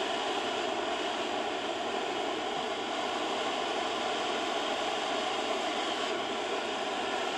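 Large gold cylinder fountain firework burning with a steady, even hiss of spraying sparks.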